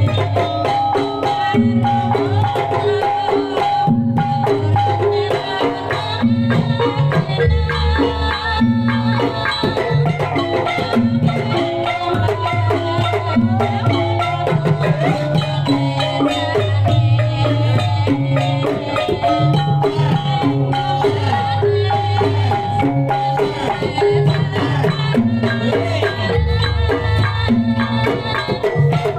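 Javanese gamelan music for kuda lumping: mallet-struck metallophones playing short repeating note patterns over hand drums, continuous and loud.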